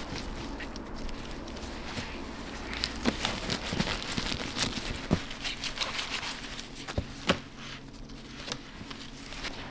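Bamboo gimbap rolling mat rustling and clicking as gloved hands roll and press a seaweed-wrapped rice roll, with several sharper clicks of the slats along the way.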